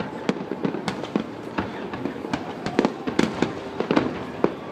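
Fireworks display: a rapid, irregular string of bangs from bursting shells over a constant crackle, with no even rhythm.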